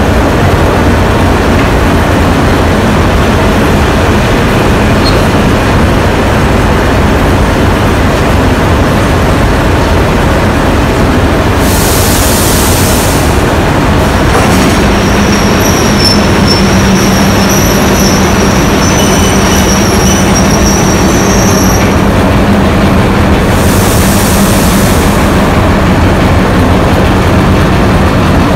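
44 class and 442 class diesel locomotives running slowly past at close range, their engines giving a loud steady rumble. From about halfway a high wheel squeal sounds for several seconds, and there are two short bursts of hiss.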